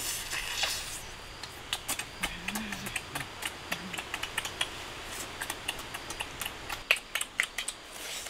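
Close-up eating sounds of roasted goat meat being bitten and chewed: irregular wet clicks and lip smacks, with a longer tearing bite near the start.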